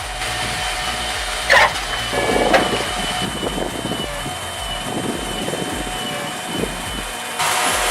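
A machine engine running steadily with a thin whine, two sharp knocks a second apart early on, and a louder, harsher noise coming in near the end.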